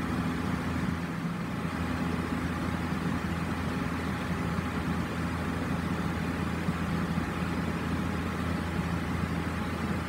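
National commercial wall-mounted exhaust fan running steadily: a low motor hum with a few steady low tones under an even rush of moving air.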